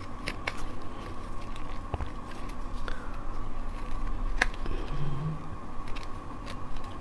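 Plastic passion fruit opener scoring around the rind of a yellow passion fruit: scattered small clicks and faint scraping, with one sharper click about four and a half seconds in.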